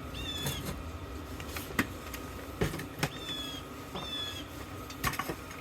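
Small metal scrap parts knocking and clicking as they are handled and sorted, with a few short, high chirps in between.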